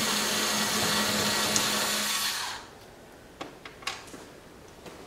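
Handheld cordless power driver running steadily as it backs off a nut, stopping about two and a half seconds in. A few light clicks and knocks follow as the tool and parts are handled.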